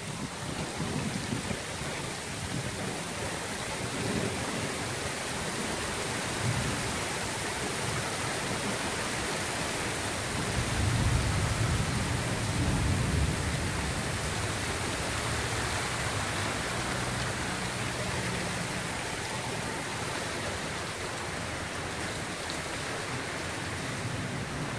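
Heavy rain mixed with small hail pouring down in a steady hiss, with a low rumble of thunder swelling about ten seconds in and dying away a few seconds later.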